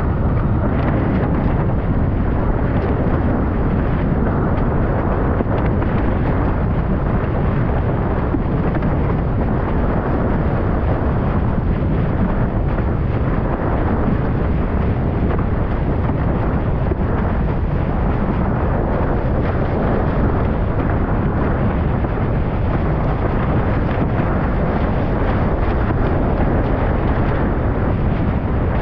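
Heavy, steady wind buffeting on the microphone of a rig-mounted camera, mixed with rushing water as the windsurf board sails fast over choppy sea.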